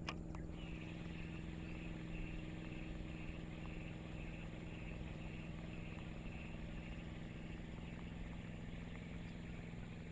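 Quiet outdoor background with a steady low hum and a faint, evenly pulsing higher chirr, and a single short click right at the start.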